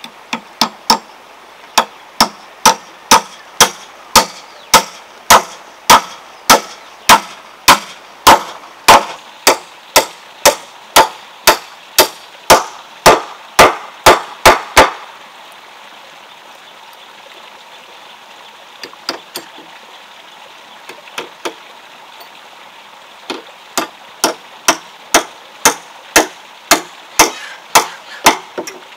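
Claw hammer driving nails into the wooden beams of a swing frame: steady, sharp blows about two a second, stopping about halfway through for a lull with a few light taps, then resuming at the same pace near the end.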